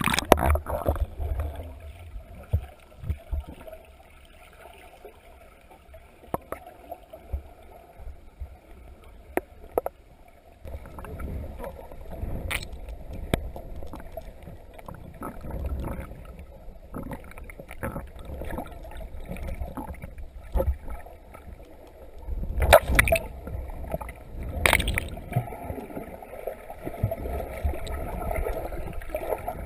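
Muffled underwater sound from a camera in a waterproof housing: low rumble of water moving around the case, with scattered knocks and two loud thumps near the end.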